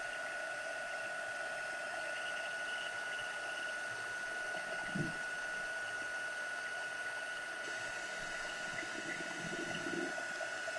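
Handheld craft heat gun blowing steadily over slate coasters to dry the paint inlay: a constant fan rush with a steady high whine. A soft knock comes about halfway through.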